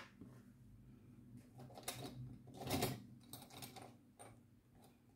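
Faint, irregular light clicks and rustles of small plastic bags of diamond-painting drills being handled and sorted, the loudest a little under three seconds in, over a faint low hum.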